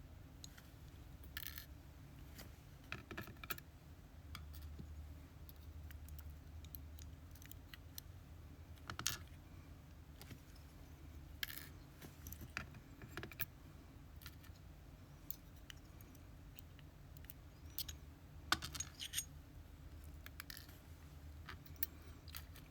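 Small metal lock parts and tweezers clicking and tapping now and then, as pins are taken out of a disassembled lock cylinder, over a faint low hum.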